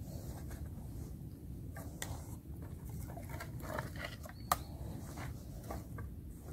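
Wooden sticks being handled and set in the ground: scattered rustles and light wooden knocks, with one sharp knock about four and a half seconds in, over a low steady rumble.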